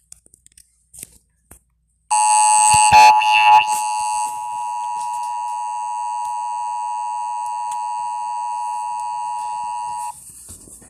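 Emergency Alert System two-tone attention signal: a steady electronic alarm tone that starts abruptly about two seconds in, wavers and is loudest for its first two seconds, then holds steady and cuts off near the end. It signals an incoming emergency message, here a winter storm warning.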